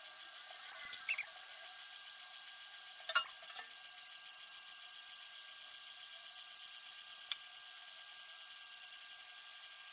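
1000 mW mini laser engraver running as it burns a design: a steady high-pitched whine with a few faint ticks.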